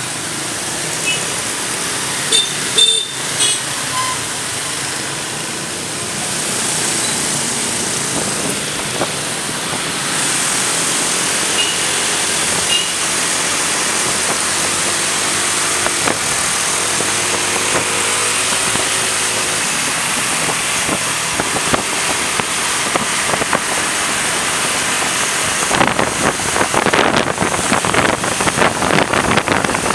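Wind rushing over the microphone of a camera carried on a moving motorcycle, over the sound of motorbike traffic running alongside. Near the end the wind turns rougher and buffets the microphone.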